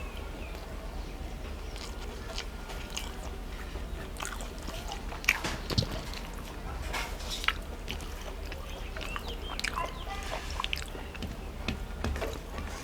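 A person eating rice and fish curry: soft, wet chewing and mouth sounds with scattered small clicks, a few sharper ones around the middle, over a steady low hum.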